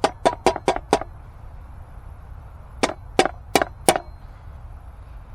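Two quick runs of sharp taps or knocks on something hard: about six in the first second, then four more about three seconds in.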